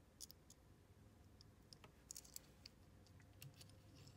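Faint, scattered clicks and taps of a die-cast metal toy jet being handled and set down among other die-cast models, over near silence.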